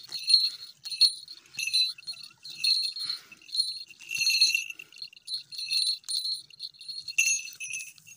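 Small falconry bell on a goshawk's leg jingling in short, irregular bursts as the hawk tugs and plucks at its kill.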